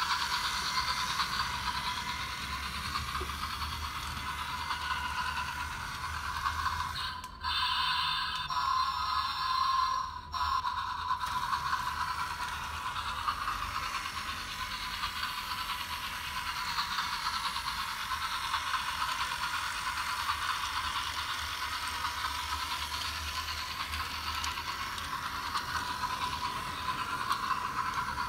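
Battery-powered Toys "R" Us Imaginarium Express toy train running on plastic track: its small electric motor and plastic gearbox whirring steadily. The whirr drops out briefly twice, about seven and ten seconds in.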